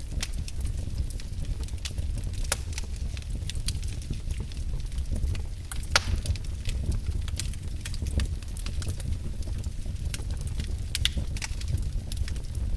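Wood fire burning in a fireplace, crackling with irregular sharp pops, the loudest about six seconds in, over a steady low rumble.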